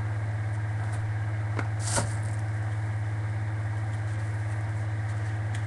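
Steady low hum with a fainter higher tone over it, and one short handling noise about two seconds in, with a fainter click just before it.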